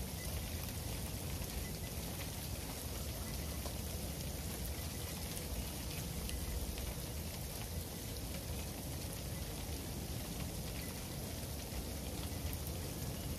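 Freezing rain falling steadily on the patio and ground, with many small sharp ticks of drops striking hard surfaces, over a low rumble.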